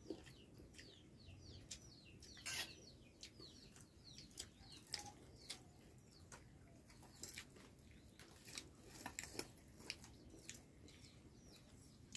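Faint chirping of small birds: a steady run of short, high, falling chirps, several a second. A few scattered sharp clicks come through, the loudest about two and a half seconds in.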